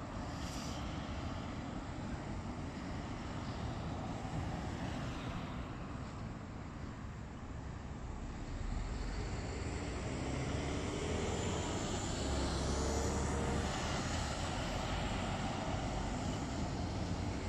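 Road traffic on a roundabout: a steady rush of tyres and engines, getting louder about halfway through as heavy lorries come round, with a low engine rumble.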